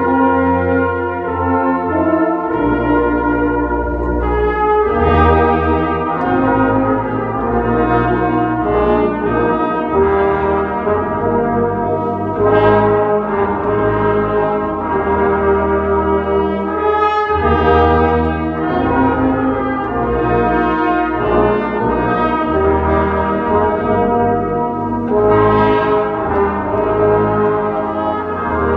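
A brass ensemble playing sustained chords, with bass notes held and changing every second or two.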